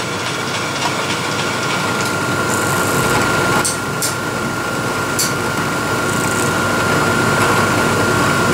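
Milling machine spindle running steadily with an edge finder in it, a constant high whine over the motor's hum. A few light, sharp ticks come in the middle.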